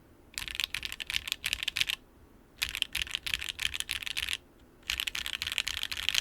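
Typing on a TKD PT1 75% top-mount mechanical keyboard with Sillyworks x HMX Sonja HC switches on an aluminium plate without foam. It comes in three runs of quick keystrokes, each about one and a half seconds long, with short pauses between.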